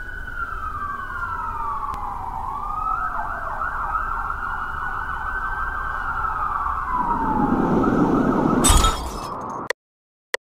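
Several emergency-vehicle sirens wailing together over a low city rumble, their pitch gliding slowly down and back up. About nine seconds in there is a sudden burst of noise, and then the sound cuts off abruptly.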